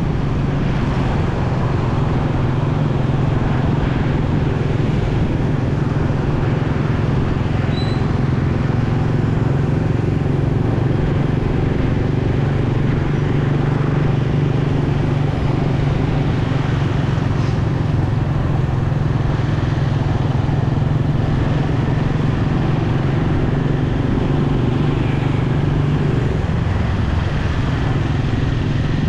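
Motorcycle engine running steadily while riding, its low hum unbroken under a constant rush of road and wind noise.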